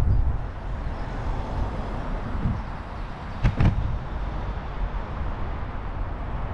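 Wind rumbling on the microphone of a bicycle on the move, a steady low noise, with two sharp knocks in quick succession about halfway through.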